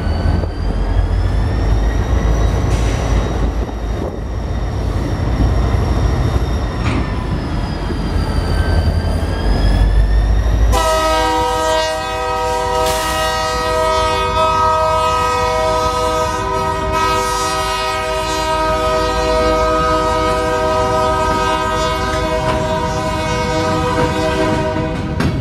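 BNSF diesel-electric freight locomotives rumbling as they roll slowly by, with a faint whine that rises and falls. About eleven seconds in, a locomotive air horn sounds one long steady multi-note blast that holds until near the end.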